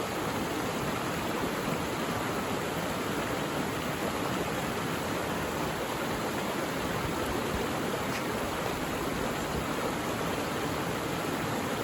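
Mountain valley stream rushing over rocks in a steady, even wash of water noise.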